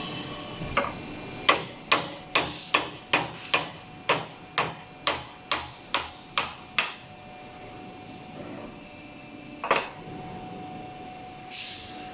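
A hammer striking hydraulic pump parts during disassembly: about fourteen sharp strikes at roughly two a second, then a pause and one more strike.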